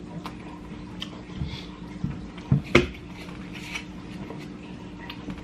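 Eating and table noises from two people at a meal: scattered small clicks, and two short louder mouth sounds about halfway through. A steady low electrical hum runs underneath.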